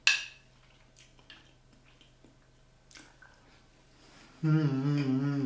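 A person quietly chewing a mouthful of soft bread dumpling, with a few faint soft clicks. Near the end comes a long, steady, closed-mouth "mmm" of enjoyment.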